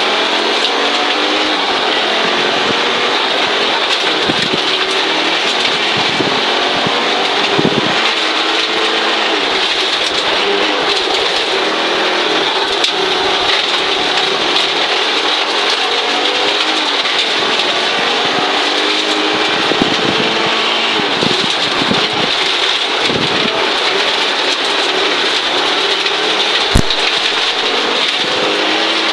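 In-cabin sound of a 1983 Audi Quattro Group B rally car at speed on gravel: its turbocharged five-cylinder engine rising and falling in pitch through the gears, over a constant hiss of tyres and gravel. A single sharp knock comes near the end.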